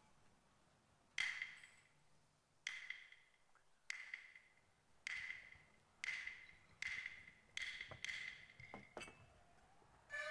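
Peking opera percussion: about eight sharp, briefly ringing wooden strokes that come faster and faster, then a quick flurry of strokes. The melodic accompaniment enters right at the end.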